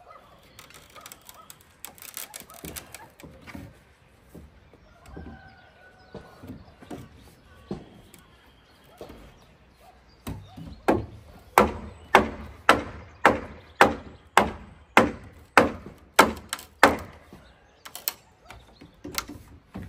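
A tool striking wood: scattered light knocks at first, then from about halfway through a steady run of about fourteen sharp, loud blows, a little under two a second.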